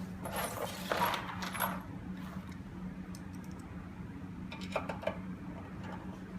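Small metal clinks and rattles from screws and door-lock mortise hardware being handled and fitted, in two short clusters, over a low steady hum.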